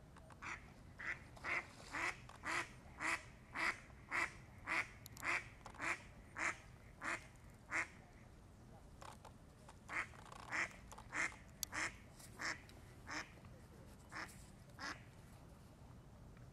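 An animal calling over and over at about two short calls a second, a run of some fifteen, then after a short pause about eight more, spaced more loosely.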